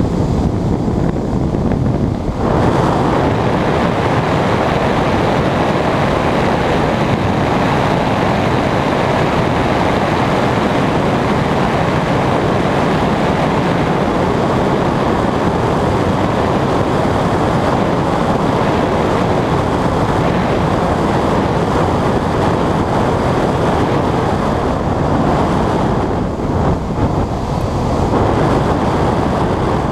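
Steady rush of air past a glider in flight, with wind buffeting the microphone. The rush turns brighter about two seconds in and dulls briefly near the end.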